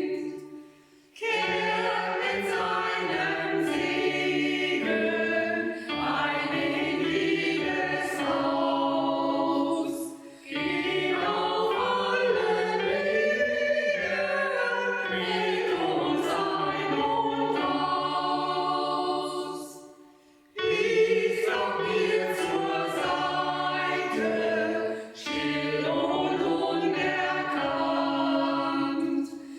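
Amateur choir singing a Christmas piece in phrases, broken by short pauses between lines.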